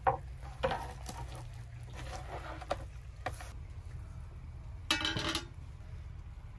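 Food-handling noises over a steady low rumble: a thump as the whole roast lamb is set down on a wooden cutting board, a few knocks and rustles, then about five seconds in a short noisy scrape as a metal ladle digs into a pot of cooked rice pilaf.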